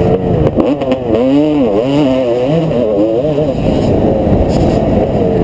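Motocross dirt bike engine revving hard under the rider, heard from a helmet camera: its pitch rises and falls several times in quick succession as the throttle is worked through the turns, then holds steadier near the end.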